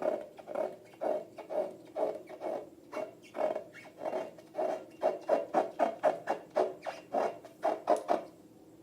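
Hands working slime and rubber balloons, making repeated short squelches and squeaks about three times a second, which stop abruptly near the end.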